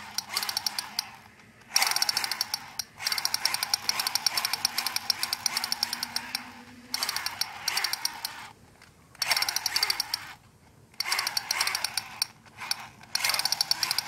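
Battery-operated toy pistol firing its electronic machine-gun sound effect: a fast rattle of clicks in repeated bursts of one to four seconds, separated by short pauses.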